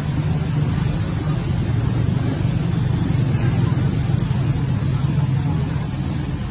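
A steady low rumble with an even hiss above it, swelling slightly in the middle.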